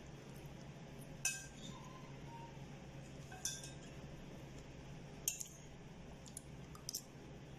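Metal spoon clinking against a ceramic bowl while eating, four short ringing clinks a second or two apart.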